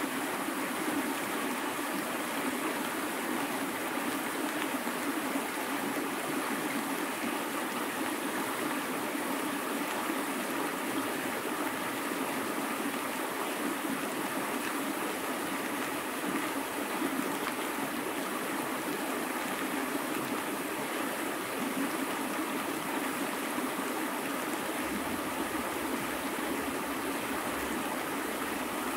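River water flowing steadily, a constant rushing of the current.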